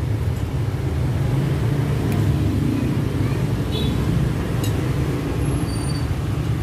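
Steady low rumble of road traffic, with a few light clinks of a fork and spoon on a ceramic plate.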